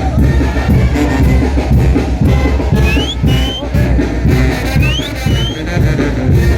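Mexican brass band (banda) playing a lively carnival son de chinelo, brass over a steady, driving drum beat. About halfway through, short high rising tones sound over the music, in two pairs.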